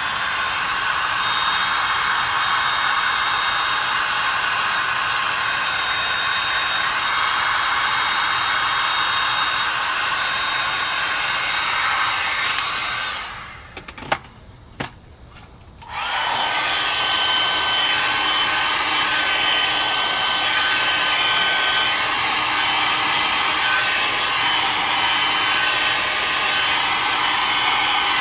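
Electric hot-air blower running steadily with a fan whine, blown over wet, thickening pour resin to make it flow and settle. It switches off about 13 seconds in, with a couple of clicks during the pause, and starts again about three seconds later.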